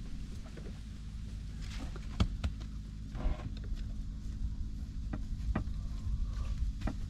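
Wood fire burning in a clay brazier, with irregular sharp crackles and pops over a steady low hum.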